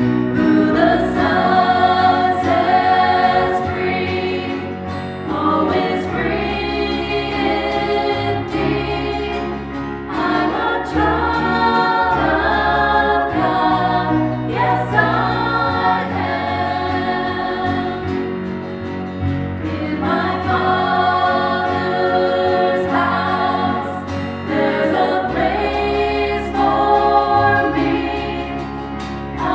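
A choir singing with instrumental accompaniment, over a sustained bass line that changes note every few seconds.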